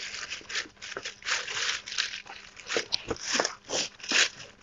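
Corrugated cardboard sheet being pushed and slid into place on the ground, rustling and scraping in irregular short bursts.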